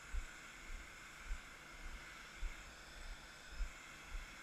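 Steady jet whine and hiss from an Airbus A319 during pushback, with irregular low thumps of wind buffeting the microphone.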